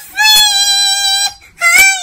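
A man's singing voice, electronically pitched up so high it sounds synthetic and childlike, holds two long notes with a brief break between them a little past halfway.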